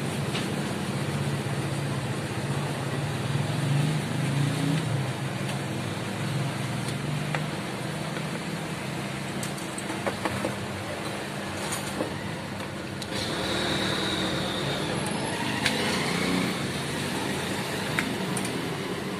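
Motor vehicle running steadily, with a low hum at first and a few sharp clicks later on.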